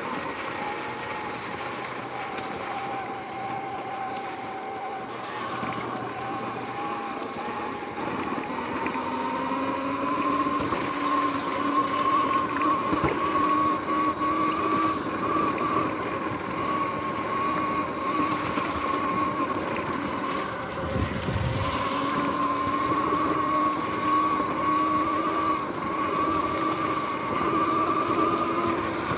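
Sur-Ron X electric dirt bike riding along a dirt trail: its electric drivetrain whines in a steady tone that rises in pitch as the bike speeds up about a third of the way in, drops briefly and climbs again past the middle, over the rush of tyres and wind.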